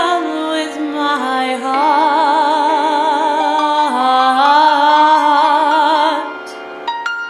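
A solo singer singing a slow jazz ballad, holding long notes with a wide vibrato and moving between a few notes. The voice stops about six seconds in.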